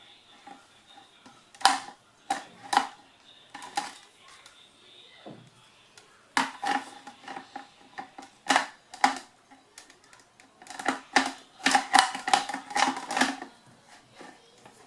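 Hard clicks and knocks of mixer grinder parts being handled and fitted together, jar or lid against the base. Scattered single knocks come first, then a denser run of rapid clicks near the end.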